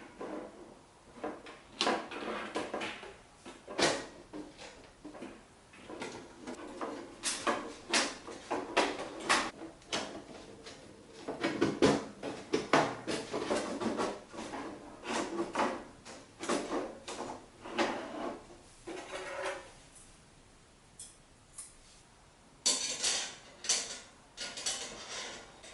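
Irregular metallic clattering, clicks and knocks of metal objects being handled, with a pause and then a dense burst of rattling near the end.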